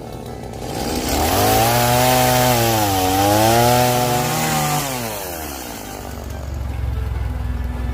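Chainsaw engine revved up and cutting, its pitch sagging under load midway and then recovering before it drops back down about five seconds in. A lower engine idles steadily afterwards.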